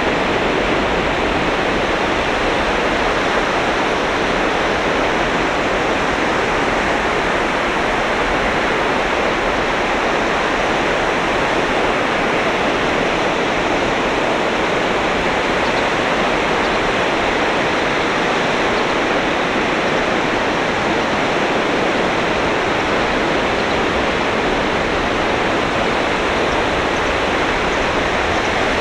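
Ocean waves breaking on a sandy beach: a steady, dense wash of surf with no clear gaps between waves.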